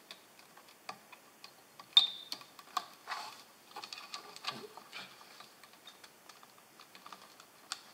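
Small plastic clicks and taps with light rustling as wire connectors are handled and pushed onto the pin headers of a 3D-printer controller board, the sharpest click about two seconds in.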